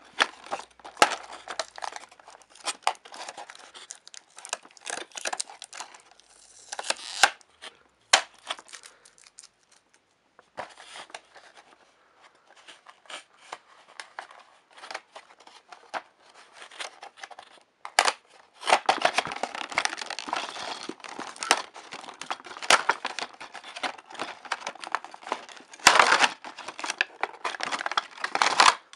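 Toy packaging being opened by hand: a cardboard box and its clear plastic insert crinkling, tearing and clicking in irregular bursts, denser and louder for a few seconds about two-thirds of the way through.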